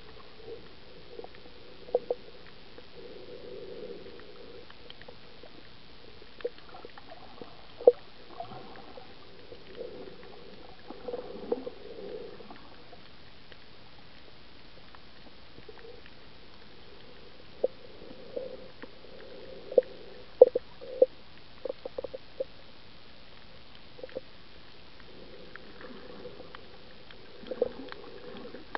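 Underwater ambience heard through the water: a steady dull hiss with scattered sharp clicks and knocks at irregular intervals, and a few slow swells of low muffled rumble.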